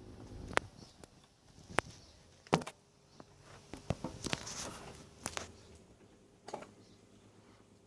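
Panasonic NA-147VB2 inverter washing machine during the wash phase: the drum turning with irregular knocks and clicks and short swishes as the wet laundry tumbles, over a faint steady motor hum.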